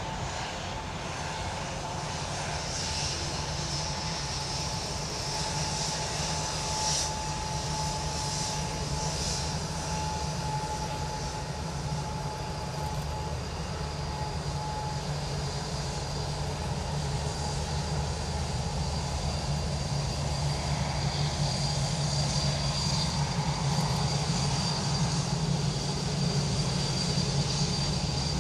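Boeing 787-9 Dreamliner's twin jet engines running at low thrust as the airliner taxis past. A steady high whine sits over a low rumble, growing louder in the second half as the aircraft turns toward the microphone.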